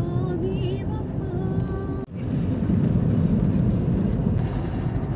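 Steady road and engine noise inside a moving car's cabin. For the first two seconds a singing voice from the car radio plays over it; it cuts off abruptly, leaving only the road noise.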